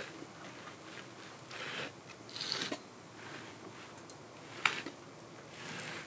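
Faint handling noises: a few soft scraping rustles and a single sharp click a little over two-thirds of the way through.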